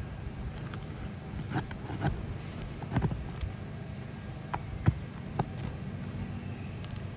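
Old, brittle asphalt 3-tab shingles scraping and cracking as a roofing tool works under them to break the seal and lift the nails, with a handful of sharp cracks, the loudest about five seconds in. The cracking goes with shingles that the roofer judges not pliable and not repairable.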